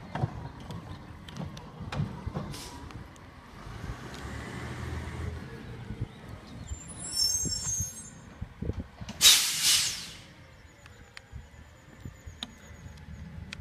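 Recycling truck's diesel engine running as it pulls up and stops, with a short high-pitched brake squeal about seven seconds in, then a loud hiss of air from its air brakes about nine seconds in.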